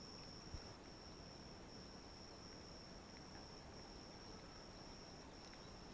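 Faint insect chorus: a steady high-pitched trill that drops out briefly now and then. One soft knock about half a second in.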